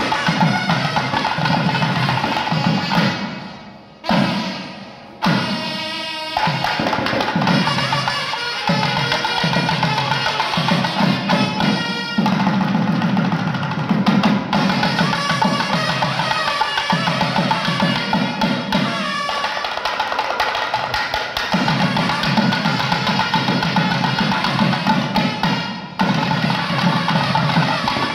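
Traditional Kerala temple ensemble: large drums beating a dense rhythm, with wind pipes sounding held notes above them. The drumming drops away briefly about four seconds in, then picks up again.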